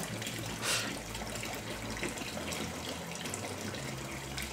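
Kitchen faucet running steadily while a bell pepper is rubbed under the stream, the water splashing into the sink below.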